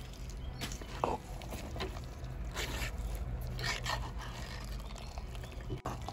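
Ladle stirring thick mashed jackfruit curry in a clay pot. It scrapes along the pot's earthenware side and squelches through the mash in repeated strokes.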